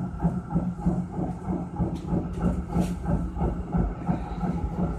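Cabin sound of a 1980-built tram running on its rails: a steady low rumble with quick irregular rattling, and a couple of light clicks around two and three seconds in.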